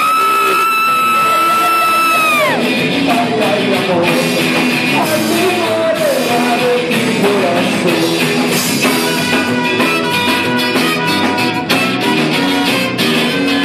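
Live rock band playing loudly, with a female singer opening on a long, high held note that scoops up and drops away after about two and a half seconds, then carrying on with a sung melody over the band.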